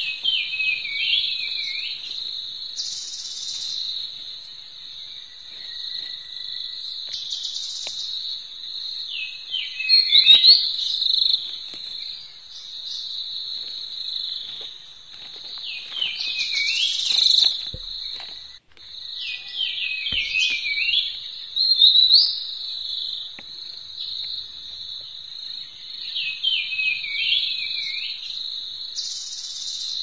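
Insects trilling steadily and high in a rice field. Short chirping calls recur every few seconds over the trill, with a little rustling and handling now and then.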